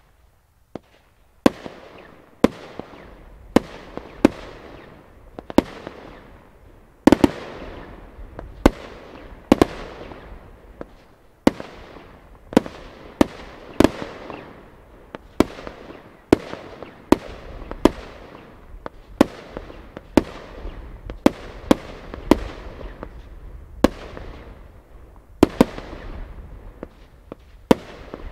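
Fireworks battery from the Broekhoff Crown Executive compound set firing shots, starting about a second and a half in and then keeping up roughly one a second at an uneven pace. Each shot is a sharp bang followed by a fading tail.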